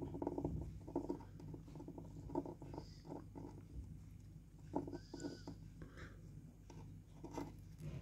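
Budgerigar chicks calling, short raspy calls repeated in quick runs with a few higher, clearer notes midway, over a steady low hum.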